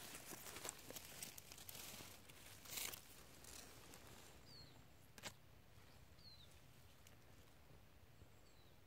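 Grass and dry leaves rustling as a hand handles a freshly picked mushroom close to the ground, with one sharp click about five seconds in. After that it goes quiet apart from faint, short, high falling chirps, three or four times.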